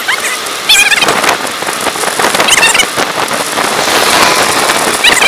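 Steady rushing noise of wind and tyres on a road bike ride, with brief high wavering squeaks about three times.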